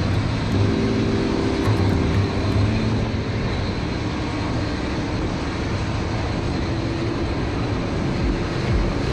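Steady rushing roar of a jet airliner's turbines with a faint high whine, heard close up at the nose gear during pushback.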